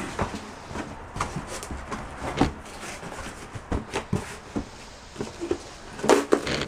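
Irregular knocks and rustling of items being moved around and shifted in a big box, with a louder cluster of knocks near the end.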